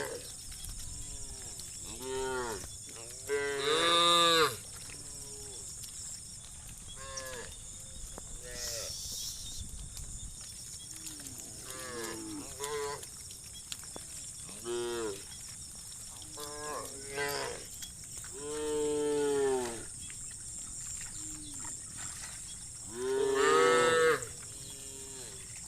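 A herd of cows mooing: many separate moos from several animals, some short and some drawn out. Three louder, longer moos stand out, about four seconds in, past the middle and near the end. A steady high hiss runs underneath.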